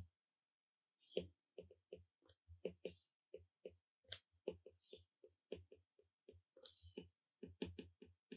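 Faint, quick, irregular clicks and taps of a stylus tip on a tablet's glass screen during handwriting, about two to four a second.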